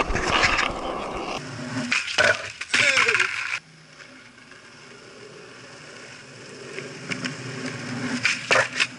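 Skateboard wheels rolling on concrete, growing steadily louder as the board approaches over several seconds, then sharp clacks of the board near the end. Before that, the opening seconds are loud wind and handling rumble on a handheld camera.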